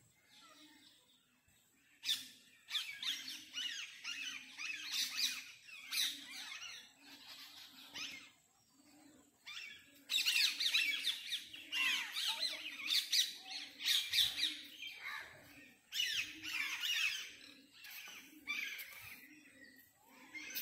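Many small birds chirping and chattering in trees, loud bouts of busy high calls with quieter spells between. Underneath, a faint low sound pulses steadily about one and a half times a second.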